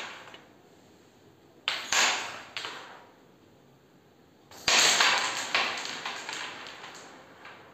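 Carrom striker flicked across the board, giving sharp wooden clicks with a ringing tail: two about 2 seconds in, then the loudest about 4.5 seconds in as the striker smashes into the packed centre coins on the break, followed by a trail of fainter clicks as the coins scatter and bounce off the rails.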